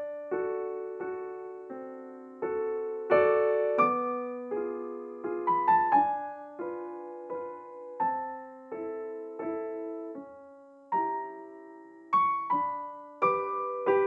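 Slow, gentle piano music: single notes and chords struck about once or twice a second, each left to fade.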